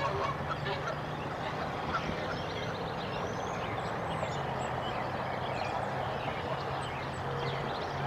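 Canada geese honking, with small birds chirping throughout, over a steady rushing background and a low hum.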